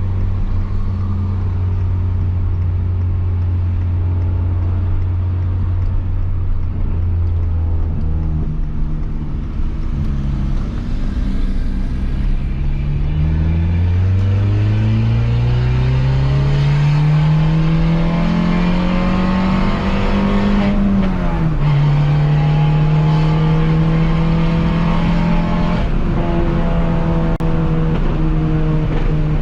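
Peugeot 206 1.4 four-cylinder with a straight-pipe exhaust and no muffler. It runs steadily at first, then accelerates hard in gear with the engine pitch climbing for several seconds. The pitch drops sharply at an upshift about two-thirds of the way in, and the engine pulls on steadily in the next gear.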